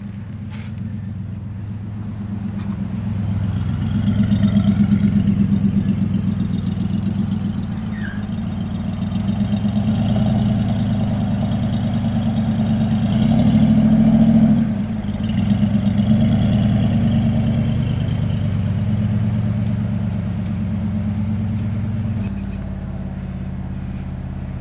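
A hot rod's engine running and being driven, swelling in revs twice, with the loudest push about two-thirds of the way through before it eases off. Near the end it settles to a steadier, lower idle.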